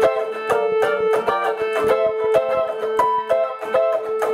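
Eastwood Mandocaster 12-string electric mandolin being picked: a melody of short picked notes, about two or three a second, over one steady ringing drone note.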